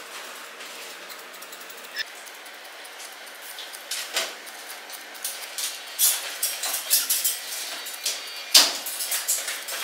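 Grooming scissors snipping through a poodle's curly coat: a few single snips at first, then a fast run of crisp snips over the last few seconds, over a steady low hiss.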